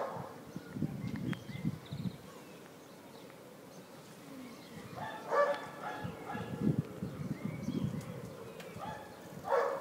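A dog barking in a few short bouts: at the start, about five seconds in and near the end. Faint voices can be heard between the bouts.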